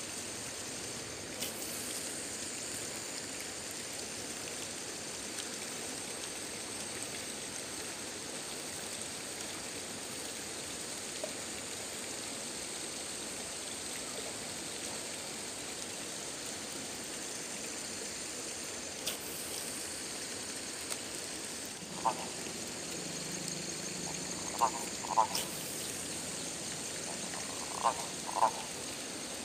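Steady high-pitched chorus of calling frogs and insects, with a handful of short, louder croaks, some in pairs, in the last seven seconds.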